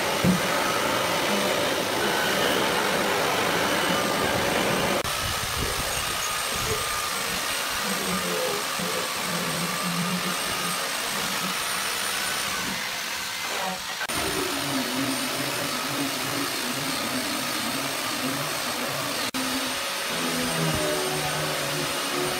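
Steady drone of a motor-driven machine with a faint high whine, changing in tone abruptly about five and again about fourteen seconds in.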